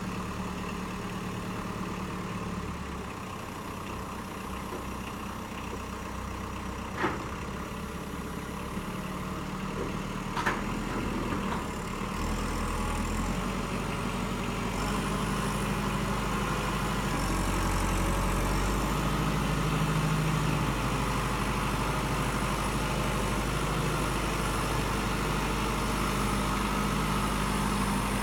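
Kubota M59 backhoe's diesel engine running, going up in speed and load about halfway through and staying louder. Two short sharp knocks in the first half.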